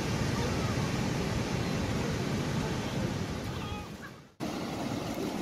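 Steady rush of ocean surf and wind on the microphone. It fades out about four seconds in, drops to silence at an edit, then resumes.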